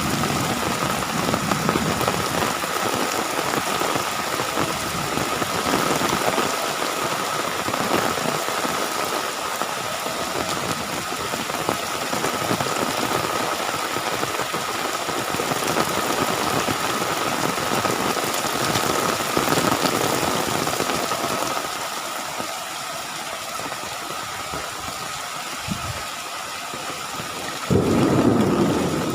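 Heavy rain pouring down in a dense, steady hiss, with a steady high tone underneath. Near the end a louder low rumble sets in suddenly.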